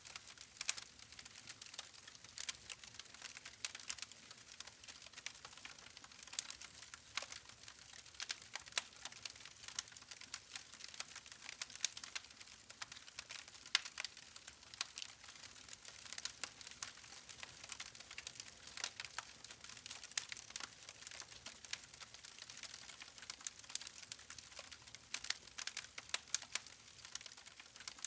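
Wood fire crackling: a dense, irregular run of small sharp pops and snaps from burning logs over a faint hiss, with a few louder pops scattered through.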